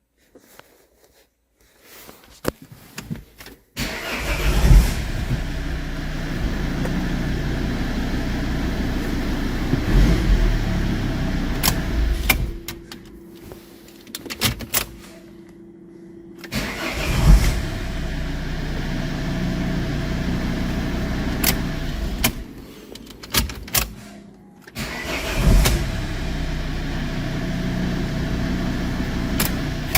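Volvo car engine started three times, each time catching within a moment and running steadily for several seconds before stopping. A faint steady hum and a few clicks fill the gaps between the starts.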